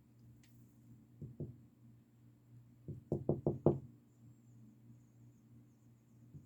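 Knocking: two light knocks, then a quick run of five sharp knocks about three seconds in, over a steady low hum.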